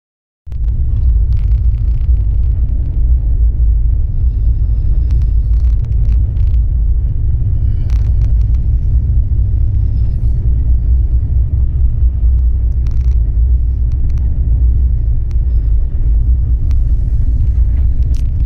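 Passenger train of the 15906 Vivek Express running at about 90 km/h, a steady, loud, deep rumble of wheels on track heard from inside the coach. It starts suddenly about half a second in, with a few faint ticks over it.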